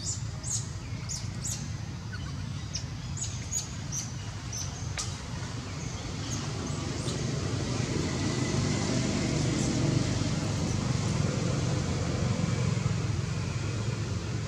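Outdoor background of a steady low rumble, getting louder after about seven seconds, with a scatter of short high chirps over the first five seconds.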